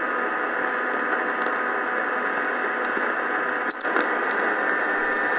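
Prunus J-15 DSP portable radio hissing with steady medium-wave static through its speaker while being tuned across the AM band. About four seconds in there is a short click and dropout as the DSP tuner steps.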